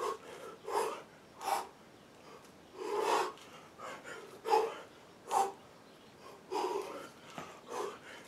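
A man's sharp, forceful breaths, puffed out through the mouth about once a second in time with his kettlebell reps: the hard breathing of heavy exertion.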